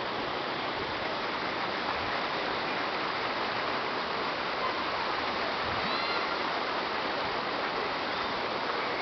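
Steady rushing of running water, even and unbroken. About six seconds in there is a brief faint high whistle.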